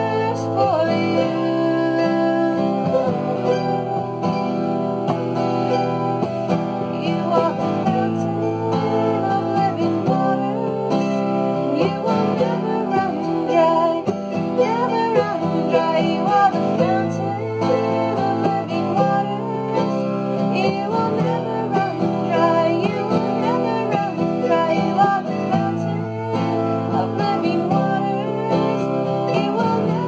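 Acoustic guitar and mandolin playing a slow worship song together.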